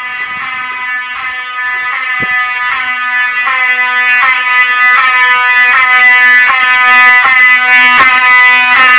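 Fire alarm horns sounding under test: a harsh pulsed horn tone repeating about three times every two seconds, growing louder over the first few seconds and then holding steady. A single click sounds about two seconds in.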